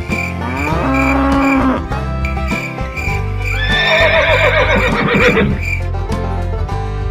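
Country-style background music with added farm-animal sound effects: a cow mooing from about half a second to two seconds in, then a horse whinnying, a quavering call that falls in pitch, around four to five seconds in.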